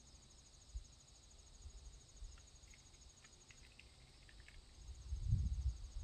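Insects trilling steadily in a high, rapid pulse that drops out briefly in the middle. Faint scattered ticks sound in the middle, and a low rumble swells near the end.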